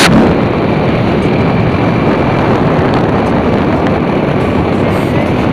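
Steady, loud running noise of a moving vehicle, with wind buffeting the microphone.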